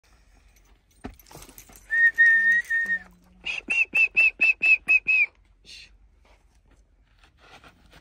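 A person whistling: one long held whistle with a brief break, then a quick run of about eight short whistles, roughly four a second.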